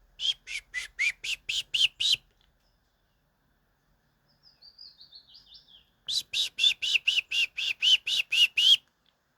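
Two bursts of loud, rapid chirping calls, about four notes a second, the second burst longer. Between them comes a fainter run of chirps stepping down in pitch.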